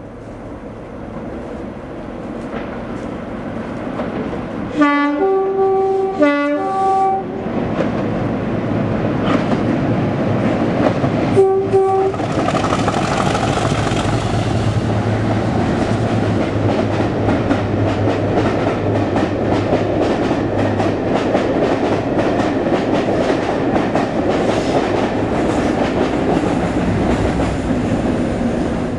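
Diesel locomotive sounding its two-tone horn twice, low note then high note each time, then a short single high note a few seconds later. The train then passes close by, the engine running under load and the wheels clattering over the rail joints, the noise loud and steady until it drops away at the end.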